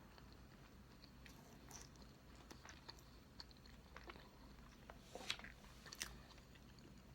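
Close-miked chewing of soft cake: quiet wet mouth clicks and smacks, with two louder sharp clicks a little after five and six seconds in.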